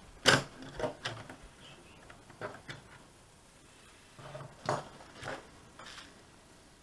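Metal clicks and knocks from handling the metal chassis and front plate of a VW RNS510 navigation radio: a handful of separate sharp clacks, the loudest about a third of a second in and just under five seconds in.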